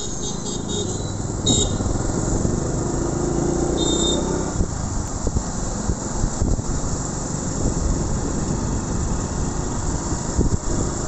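Riding a motorcycle through city traffic: the engine runs under a steady rush of road and wind noise, with wind buffeting the microphone in irregular gusts.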